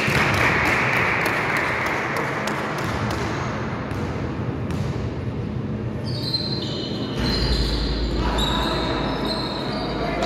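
Basketball game sounds in an echoing gym. A burst of noise at the start fades over a couple of seconds, with the basketball bouncing and knocking. In the second half sneakers squeak on the court as players run.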